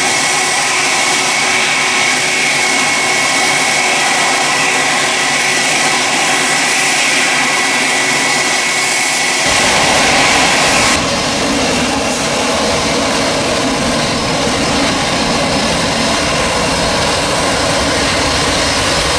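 Jet noise from a Boeing 777 climbing away after takeoff, a steady hiss with a high whine. About nine and a half seconds in the sound cuts to another Boeing 777's twin GE90 turbofans running on the runway, a deep, steady rumble.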